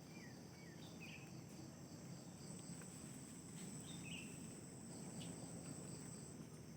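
Steady high-pitched drone of an insect chorus, with a few short falling bird chirps near the start and again about four seconds in.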